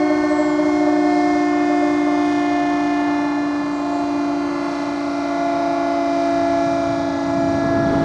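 Broadmoor Hospital's escape-warning siren (siren A) on its tower, sounding a steady chord-like tone under test. The pitch holds nearly level, and the loudness sags a little midway before coming back up.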